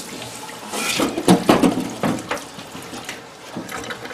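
Brake rotor being cleaned in a parts washer: solvent running and splashing, with irregular scrapes and clinks of the metal rotor, loudest about a second in.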